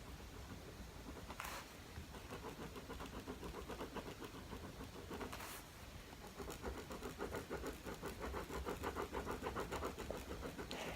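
Pen scribbling rapidly back and forth on paper, colouring in a small area solid black. It goes in quick, even strokes, with a short pause about halfway through.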